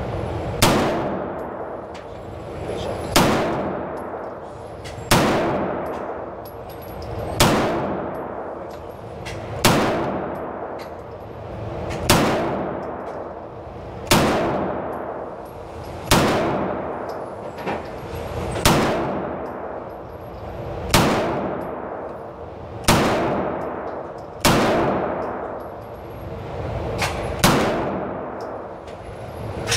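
Beretta M9A4 9mm pistol fired in slow, steady single shots, about a dozen, roughly one every two seconds. Each shot is a sharp crack followed by a long echoing tail off the walls of an indoor range.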